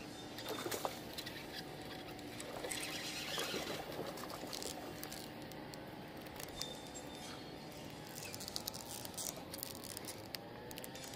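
Shimano Aldebaran BFS baitcasting reel being wound in against a hooked trout: a steady whir with small squeaky clicks.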